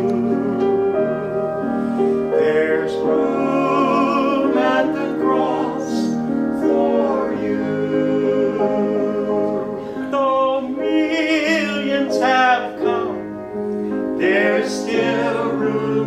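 A man singing a slow gospel song with a wide vibrato on long held notes, over keyboard accompaniment playing sustained chords.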